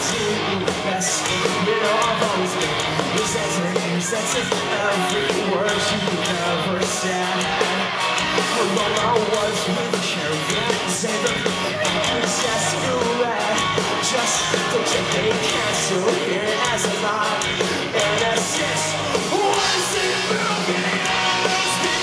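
Live rock band playing at full volume: distorted electric guitars, bass guitar and drum kit, with the lead singer singing and shouting into the microphone.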